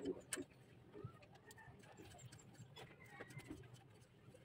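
Near silence, with a few faint metallic clicks from the brass fuel-line fitting being threaded by hand into the carburetor inlet, mostly at the start and about a second in. Faint high chirps in the background.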